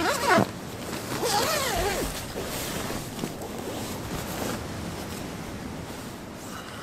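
A zipper being pulled open in two strokes: a short, quick pull with a falling whine at the start, then a longer pull about a second later, followed by faint rustling.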